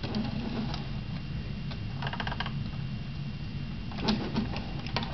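Light clicks and taps from a hand handling a small diecast model car on a wooden table. There is a quick run of clicks about two seconds in and a couple of sharper taps near the end, over a steady low hum.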